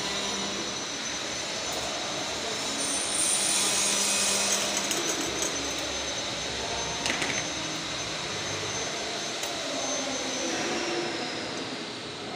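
A steady mechanical drone and hiss with high whining tones, one of which falls in pitch near the end, and a single sharp click about seven seconds in.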